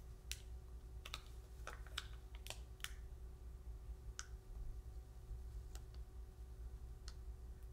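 Faint, scattered small clicks and taps, several close together in the first three seconds and a few more spaced out later, from fingernails and clear transfer tape against a phone while the tape is peeled off a vinyl decal on its back.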